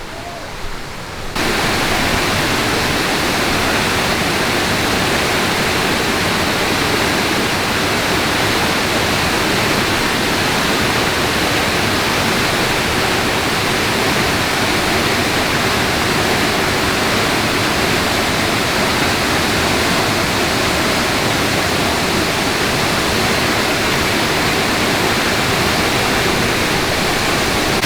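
Waterfall in heavy flow, swollen by recent rain: a loud, steady rush of falling water that comes up suddenly about a second in.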